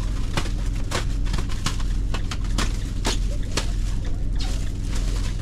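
Ram ProMaster cargo van cabin noise while driving: a steady low rumble with irregular clicks and rattles.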